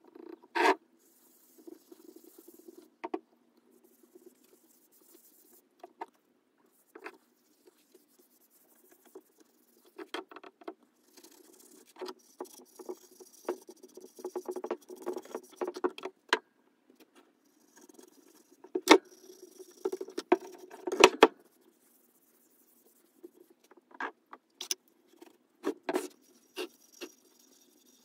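Irregular light taps, clicks and scraping, as of small objects being handled, with quiet gaps between and a few sharper knocks past the middle.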